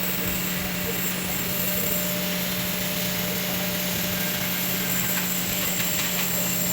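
TIG welding arc on stainless steel hissing steadily, with a constant hum from the welding machine underneath.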